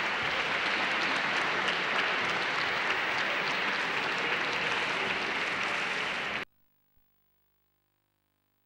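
Concert-hall audience applauding, a dense steady patter of many hands clapping; it cuts off suddenly about six and a half seconds in.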